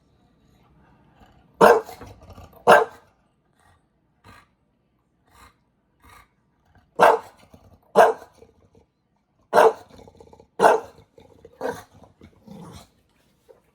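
Bulldog barking: seven short, loud barks, mostly in pairs about a second apart, with pauses of a few seconds between the groups.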